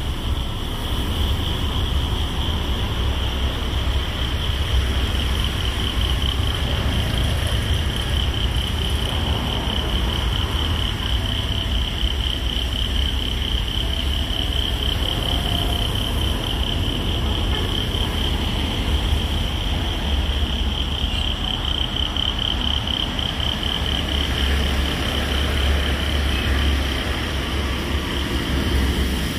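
Steady, shrill chorus of insects, a single finely pulsing high note, over a low, uneven rumble of wind on the microphone.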